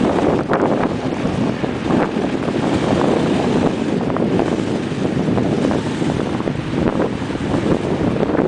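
Dog sled moving fast over packed snow: a steady rushing hiss of the runners on the snow with scattered short scrapes and knocks, mixed with wind buffeting the microphone.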